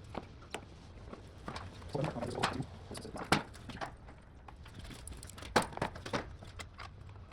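Scattered, irregular clicks and knocks of a hand tool working the screws on a motorcycle's plastic body panel, with the sharpest knocks about a third of the way in and again past the middle.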